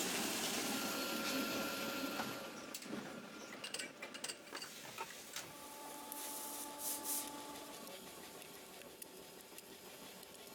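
Plastics factory machinery: a hiss for the first couple of seconds, then scattered clicks and knocks, with a faint steady hum for a few seconds near the middle.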